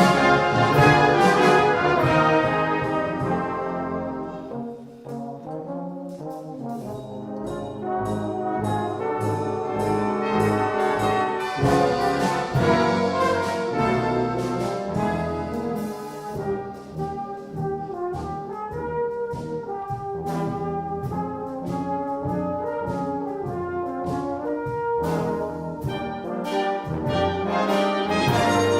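Brass band playing a hymn tune in sustained chords, softer for a moment about five seconds in, then full again.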